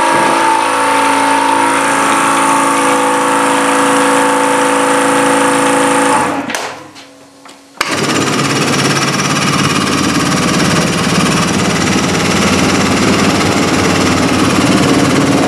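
A power tool running steadily winds down about six seconds in. About a second and a half later a power tool starts again abruptly, running rougher and noisier.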